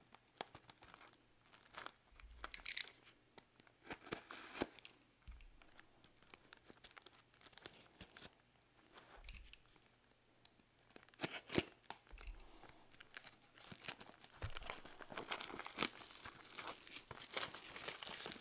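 Plastic shrink-wrap on a cardboard trading-card hobby box crinkling and tearing as it is peeled off by hand, in scattered crackles that grow denser near the end, with a few soft bumps from the box being handled.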